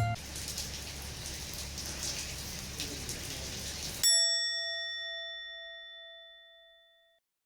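A steady rain-like patter, cut off about four seconds in by a single bell-like ding whose clear, slightly wavering tones ring out and fade over about three seconds.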